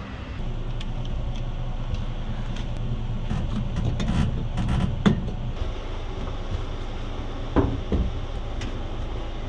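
Plastic interior trim panels and a seat being handled and pressed into place inside a car body, giving scattered knocks and clicks with a sharp knock about five seconds in. Over a steady low hum.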